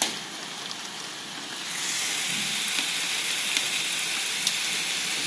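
Heavy rain falling steadily, a dense hiss that gets louder a little under two seconds in. A single sharp click right at the start.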